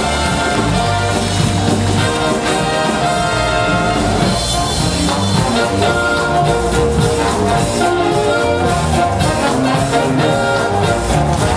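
Orchestral music with brass instruments playing, with percussion accents in the second half.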